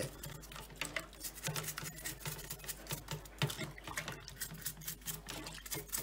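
Toothbrush scrubbing a Bosch dishwasher's cylindrical mesh filter in soapy water: a quick, irregular run of scratchy brushing strokes.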